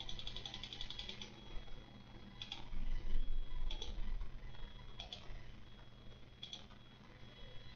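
Faint, sharp clicking ticks: a quick rattle of clicks in the first second, then single ticks about every second and a quarter, over a steady low hum.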